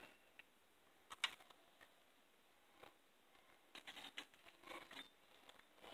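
Near silence with a few faint clicks and rustles: fishing rods and a cardboard hang tag being handled. One click comes about a second in, and a short run of soft rustling and clicking follows between about four and five seconds.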